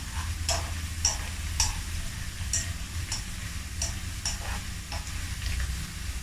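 Dried anchovies (ikan bilis) sizzling as they deep-fry in a wok. Wooden chopsticks stir them with short, light clicks against the wok and fish about every half second.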